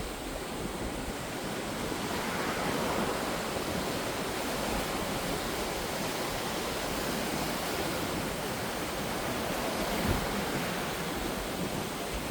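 Ocean surf washing on the shore: a continuous rush of breaking waves that swells slightly about two seconds in.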